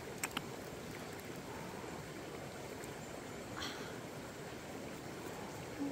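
Hands digging through loose soil and leaf litter: two light clicks just after the start and a brief rustling scrape about three and a half seconds in, over a steady background hiss.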